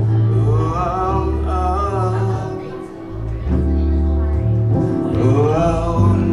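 Live music: a man singing an original song over a sustained low instrumental accompaniment, with the sung lines entering about half a second in and again near the end.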